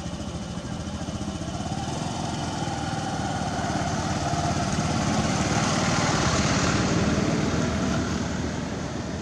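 Small motorcycle engine running, growing louder toward the middle and easing off near the end.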